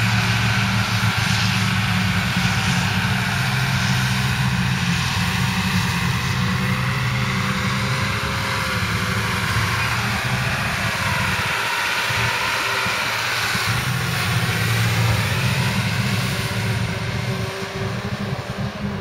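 Heavy diesel farm machinery running steadily under load, a deep engine drone with a fainter whine above it.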